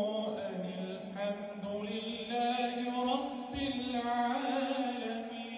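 A male imam chanting Quranic recitation into a microphone, in several long, melodic, drawn-out phrases with held notes.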